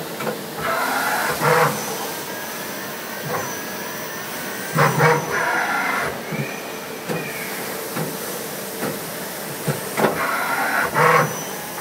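Miyano BND 34T CNC lathe running an automatic machining cycle. A steady machine hum carries a louder burst of noise about every four and a half seconds, three times, with short clicks in between.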